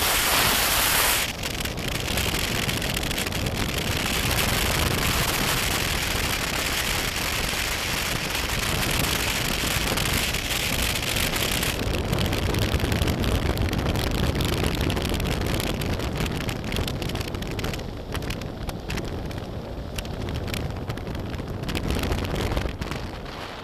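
Wind noise on the microphone mixed with the noise of a motorcycle being ridden, with a dense spatter of small clicks and knocks throughout; it quietens near the end.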